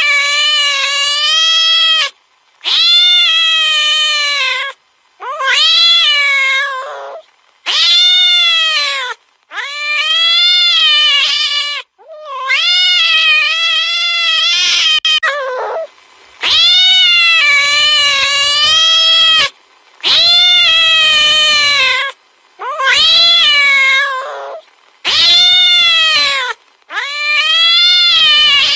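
Domestic cat yowling fiercely: about eleven long, drawn-out caterwauling calls with wavering pitch, separated by short pauses.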